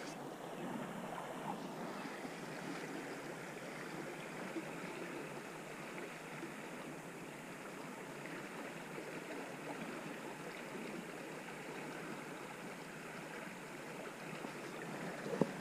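Creek water running steadily, a soft even rush.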